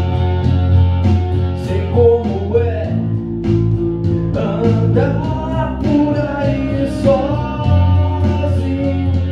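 Electric guitar and electric bass playing a song together, with deep sustained bass notes. A man's voice sings over them from about two seconds in until the bass notes return near the end.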